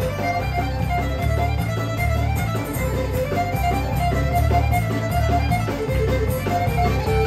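Live country band playing an instrumental passage led by a fiddle playing fast runs of notes, over acoustic guitar, electric bass and drums keeping a steady beat.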